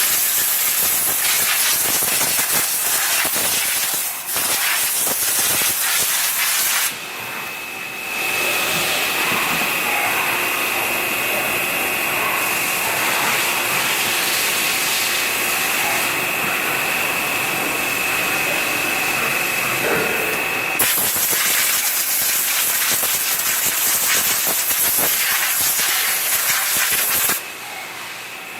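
CNC machine running with a loud, steady hiss. A high, steady whine joins it from about seven to twenty-one seconds in, and the noise drops briefly twice.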